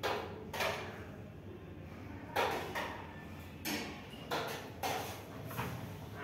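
Scattered knocks and clatter, about seven in six seconds, over a steady low hum in a hotel restaurant dining room with a buffet counter.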